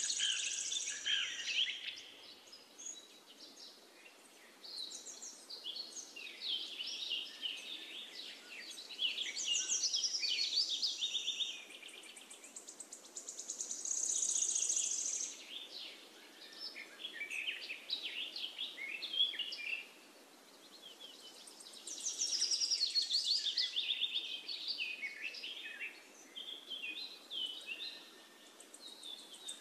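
Birds singing: repeated bursts of high chirping and trilled phrases a few seconds apart, over faint steady background noise.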